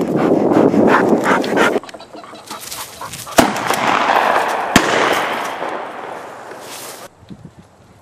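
Two shotgun shots at a flushed pheasant, about a second and a half apart, the first louder. A loud rushing noise comes before them.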